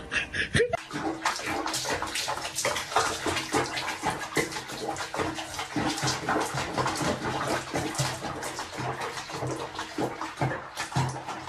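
Water splashing and sloshing in a small tub where a cat is being bathed in soapy water. A short rising tone comes right at the start.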